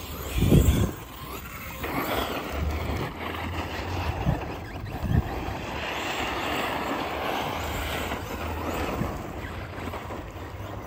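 Arrma Fireteam 6S radio-controlled truck driving over loose gravel: a steady whirring run of its brushless motor and tyres throwing stones, with wind buffeting the microphone. A gust about half a second in is the loudest moment.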